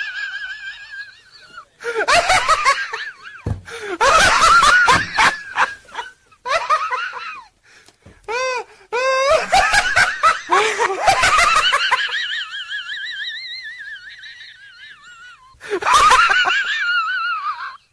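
Bursts of high-pitched laughter, on and off, with one long wavering laugh running from about nine to fifteen seconds in.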